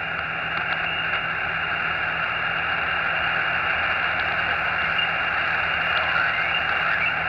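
Xiegu X6100 HF transceiver's speaker giving a steady hiss of band noise as it is tuned up through the 40-metre band in lower sideband, with no clear station coming through.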